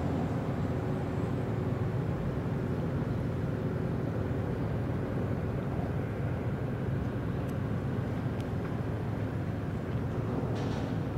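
Steady low rumble of a large bulk carrier under way, heard across open water, with two faint clicks and a brief hiss near the end.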